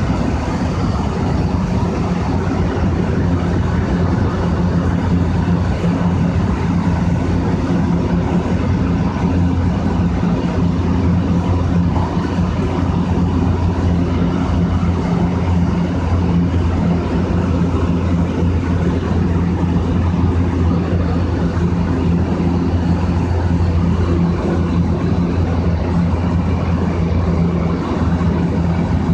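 223 series 1000 electric multiple unit running at high speed, heard from inside the driver's cab: a loud, steady, airplane-like drone of traction motors and wheels on rail.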